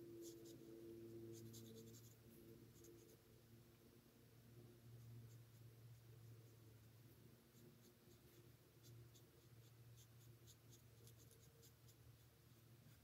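Faint scratching of a Stampin' Blends alcohol marker's tip on cardstock in short colouring strokes. The strokes come in a few clusters, near the start and again towards the end, over a low steady hum.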